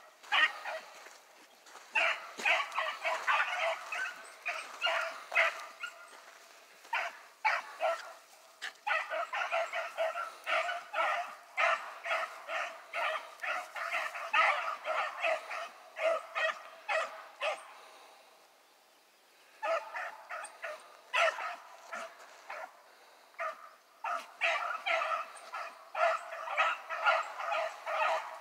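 Rabbit hounds giving tongue in quick, repeated barks as they run a rabbit's trail, with a short break about two-thirds through.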